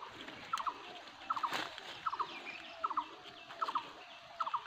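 A rhythmic animal call in the forest: a quick group of two or three short, clicky notes repeating very evenly, about every three-quarters of a second, six times, with faint higher chirps of birds behind it.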